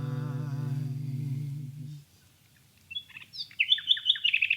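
The final held note of a folk song recorded in the woods dies away about two seconds in. After a short lull, a common nightingale sings loud, rapid phrases of repeated high whistles and trills.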